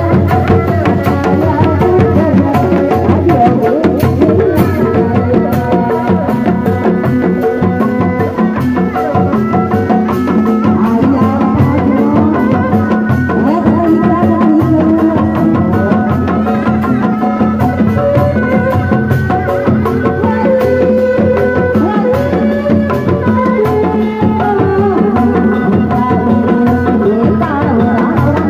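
Sundanese street-procession music played live and amplified: kendang hand drums keep a fast, busy beat under a wavering melody line.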